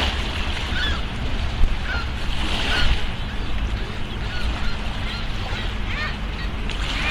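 Birds calling: short, scattered chirps over steady background noise.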